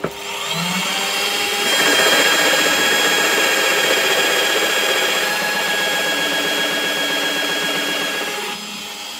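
Bench pillar drill spinning up and boring a recess into oak with a forstner bit. The motor whines steadily while the bit cuts, louder from about two seconds in, then eases off near the end and begins to wind down.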